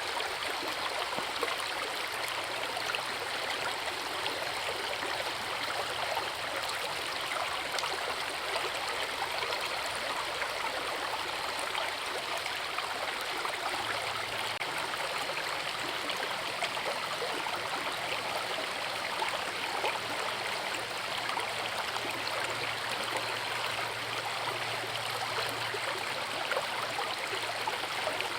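Water of a forest river rushing and splashing over a waterfall, a steady, unchanging noise.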